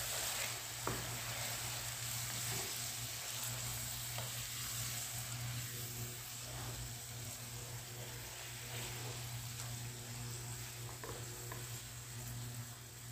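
Chicken karahi cooking in a wok: chicken pieces and tomatoes sizzling in their liquid, a steady hiss with a steady low hum underneath and a few faint ticks.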